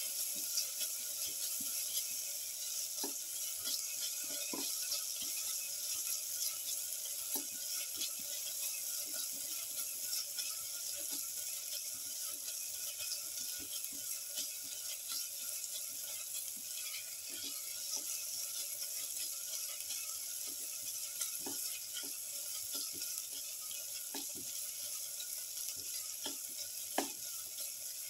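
Sliced onions and shallots sizzling as they sauté in butter in a pan while being stirred, with scattered light clicks and ticks throughout.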